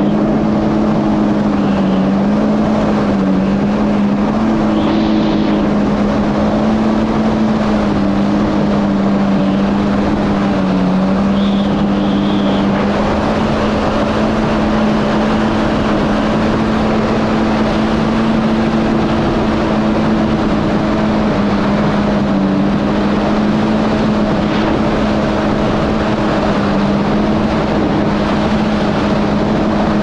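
Yamaha GP1800R SVHO jet ski's supercharged four-cylinder engine running at a steady speed, its pitch holding with small dips, over a constant rushing hiss.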